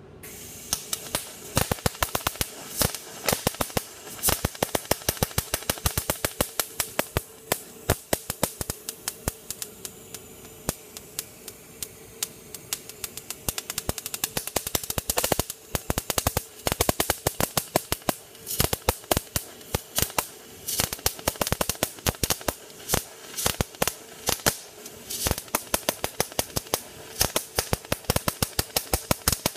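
MIG welding arc crackling and popping over a steady hum as the wire feeds. The arc goes from a dense, even sizzle to sparser, irregular popping, like popcorn, when the gun is held too far from the work, then back again.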